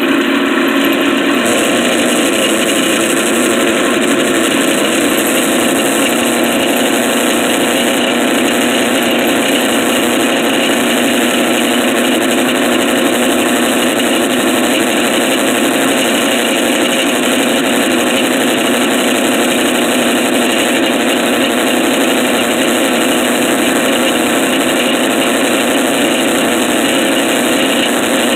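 Drill press running steadily while it bores a 1/8-inch hole through the steel clamp end, without pause or change.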